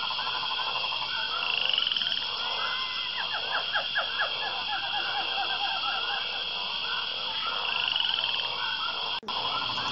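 Nature ambience of many frogs croaking in quick, rapidly repeated calls over a steady high-pitched chirring. It cuts out for an instant near the end and then carries on.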